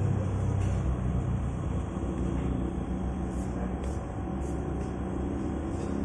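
Motor vehicle engine idling, a steady low rumble with no change in pitch.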